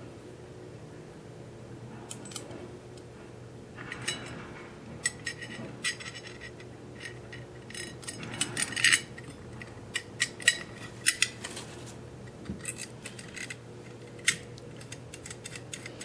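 Small metal light-fixture parts and screws clicking and clinking as they are handled and fitted, with scattered sharp clicks that come thickest around the middle, over a faint steady hum.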